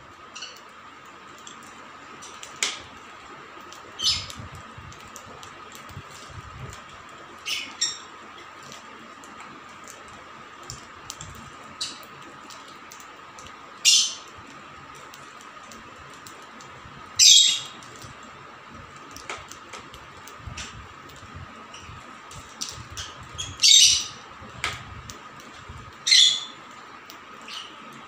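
Rosy-faced lovebirds giving short, sharp squawks every few seconds, about eight loud ones, with fainter chirps between them, as they feed from a hand-held bowl of seed.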